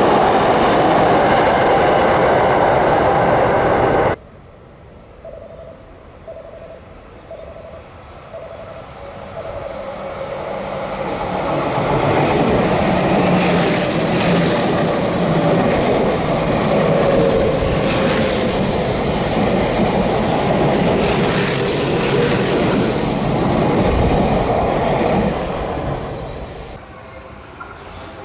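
Electric commuter trains: one train's noise cuts off abruptly about four seconds in, a faint tone repeats steadily for a few seconds, then another train approaches, runs past with the clickety-clack of wheels over rail joints for about twelve seconds, and fades.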